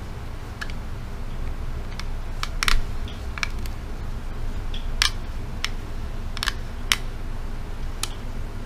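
Sharp plastic clicks and knocks from a rear-view-mirror phone holder being turned and adjusted with a phone clamped in it, about ten scattered irregularly, over a steady low hum.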